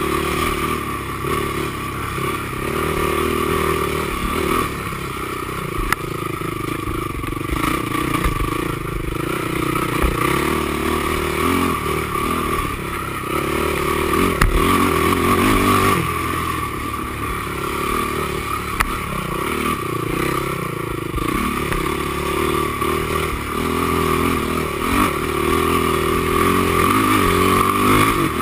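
Honda TRX450R quad's single-cylinder four-stroke engine running hard and revving up and down under throttle changes, with occasional knocks from the machine over rough ground.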